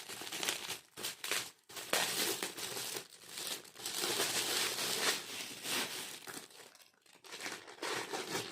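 Gift wrapping paper crinkling and tearing in irregular bursts as a present is unwrapped by hand, with two short pauses.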